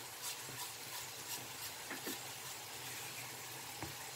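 A silicone spatula scraping a frying pan, faint, with a few soft scattered taps as fried pork cracklings and seasoning are pushed out of the pan into a plastic bowl.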